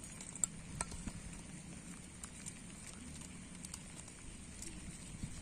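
Faint, scattered light clicks and rustles from a plastic fish trap and its string being handled, over a low steady outdoor background.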